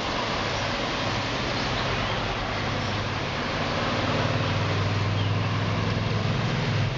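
Steady hiss of storm rain on a wet street, with a motorcycle passing from about four seconds in, its engine running low and steady and becoming the loudest sound.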